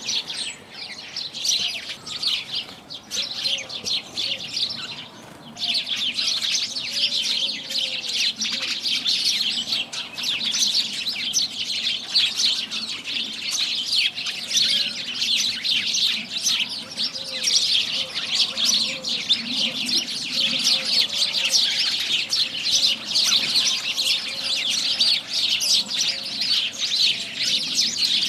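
Many house sparrows chirping at once in a dense, continuous chatter. It is thinner for the first few seconds and fuller from about five seconds in.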